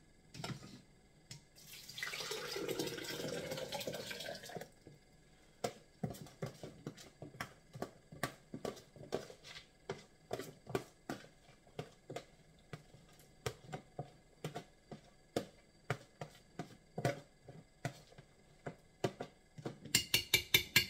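Wet grated coconut pours from a plastic tub into a blender jug for a couple of seconds. Then comes a long run of hollow plastic knocks and taps as the tub is knocked against the jug to shake out the rest, the taps coming fast near the end.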